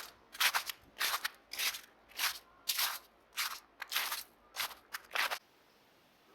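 Footsteps crunching through snow at a steady walking pace, about two steps a second, stopping about five seconds in.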